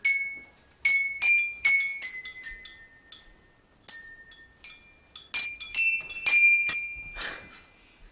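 A set of numbered hand bells rung one at a time by a group of players, picking out a tune note by note: about fifteen bright, high-pitched strikes at different pitches, each ringing on briefly, in a halting, uneven rhythm.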